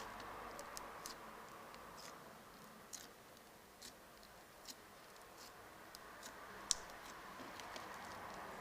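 Crunchy slime being pressed and played with, giving small irregular pops and crackles, the sharpest one about two thirds of the way in. A faint steady rush of road traffic runs underneath.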